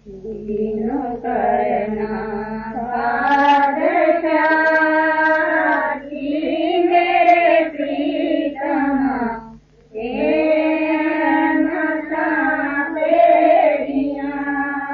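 Punjabi devotional shabad being sung: a voice draws out long melodic phrases that bend in pitch. There is a brief break about ten seconds in.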